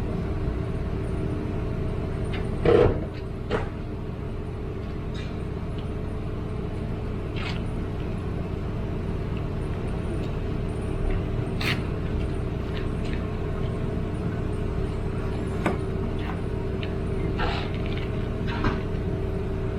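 Steady drone of a road vehicle running, with a louder knock about three seconds in and a few light clicks.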